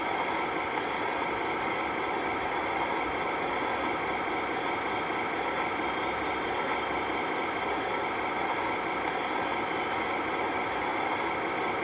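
Steady, even hum and hiss of background noise with a few faint constant tones, like a fan or small motor running, with no change throughout.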